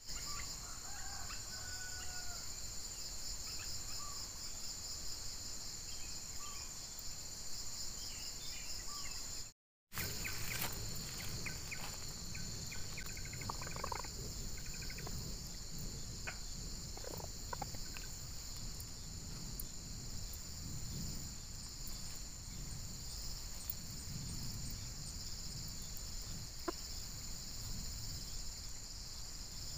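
A steady, high, continuous insect chorus with a pulsing texture. A few short bird calls come in the first several seconds. After a brief dropout, light clicks and rustles of hands working in dry grass follow.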